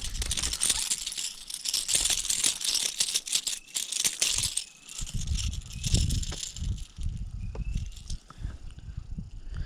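A hooked pickerel splashing at the surface while being reeled in on a spinning rod: a dense rattling hiss full of quick clicks that stops about four and a half seconds in, as the fish is swung out of the water. Then low bumps and rustling of handling in dry grass.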